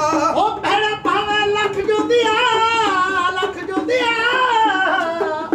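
A voice singing a Punjabi folk song in long held notes that waver and bend in pitch, with only light drumming under it.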